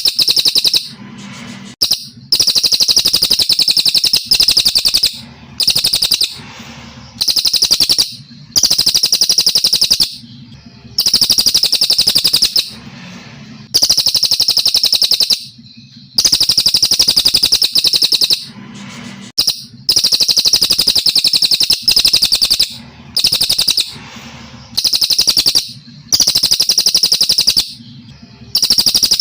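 A brown cililin, a Kalimantan songbird, singing a long series of loud, rapid trilling phrases. Each phrase lasts about a second or a little more, with short pauses between, repeating roughly every two seconds.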